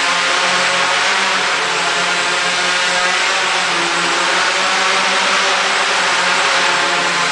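Homebuilt Arduino-based AeroQuad quadcopter's four motors and propellers running, a steady, loud buzzing whine with little change in pitch.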